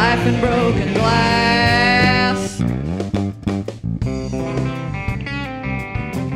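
Live rock band playing an instrumental passage with electric guitar, bass and drums: held notes for the first couple of seconds, a downward pitch slide about halfway, then a run of quick picked guitar notes.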